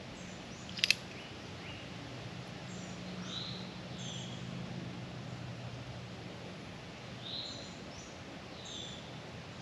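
Songbirds calling in the surrounding woods, short whistled phrases repeating every second or so over a steady low hum, with one brief sharp click about a second in.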